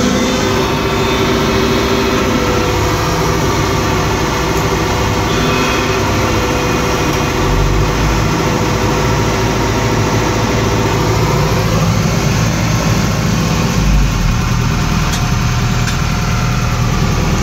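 Sumitomo hydraulic excavator's diesel engine idling steadily, heard from inside the operator's cab, as the machine is warmed up before work.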